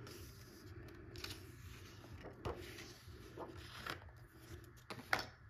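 Coloring-book pages being turned and pressed flat by hand: faint paper rustles and soft swishes, a few times, with a sharper swish near the end.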